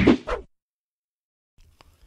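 Tail of a whoosh transition sound effect fading out, then dead silence for about a second, with a few faint clicks near the end.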